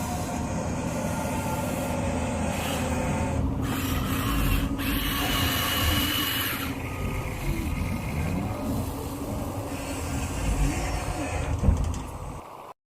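Small electric motors and gearing of remote-control construction models running steadily. The sound cuts off abruptly near the end.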